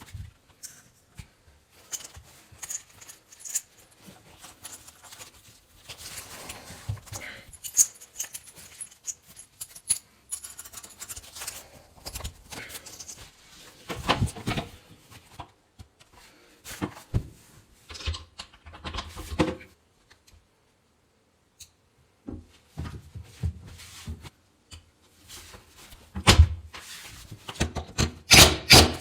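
Irregular clicks, knocks and short scrapes of hand tools and plumbing fittings being handled. Near the end they give way to quick repeated rubbing strokes.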